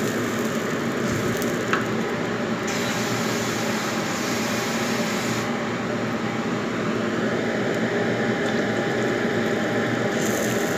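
Steady hiss of a wok of soup broth heating over a gas burner turned up high, being brought to the boil. About ten seconds in it turns brighter as more liquid is poured in from a steel bowl.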